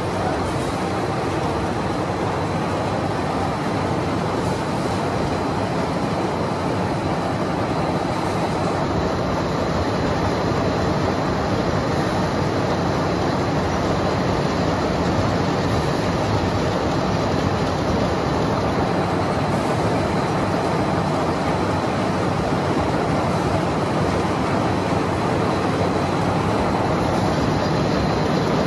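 Multi-pass steel wire-drawing machine running steadily, its capstan drums turning as wire is pulled through the drawing dies: a dense, continuous mechanical noise with a faint steady high whine.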